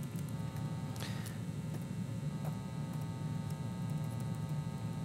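Low steady hum with faint, scattered taps of laptop keys.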